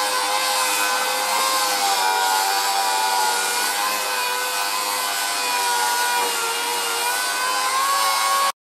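Small handheld disc sander running steadily while sanding a car's rocker panel, a slightly wavering whine over a bright sanding hiss. It cuts off suddenly near the end.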